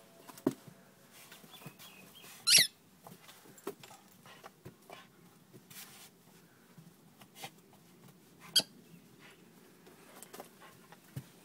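A kelpie digging in a sand-filled plastic tub: scattered scratching and scrabbling of paws in the sand and against the tub, with two short, sharp, high squeaks, one about two and a half seconds in and another past the middle.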